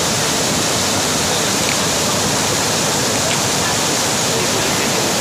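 Hill stream in flash flood after heavy rain: muddy floodwater rushing and churning over rocks in a loud, steady roar.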